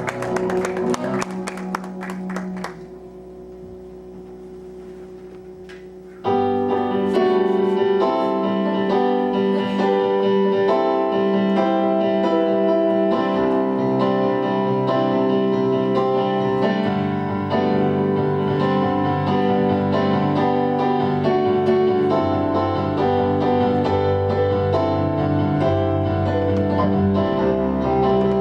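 Instrumental music on keyboard or piano: a passage with percussion hits gives way to a quieter held chord, then about six seconds in the keyboard comes back in loudly, playing steady chords.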